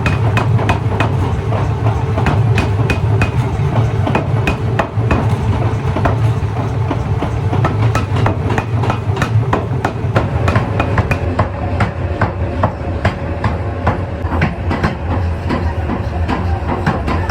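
Forging hammer blows on metal repeating a few times a second, the strikes coming faster in the second half, over a steady low machinery hum.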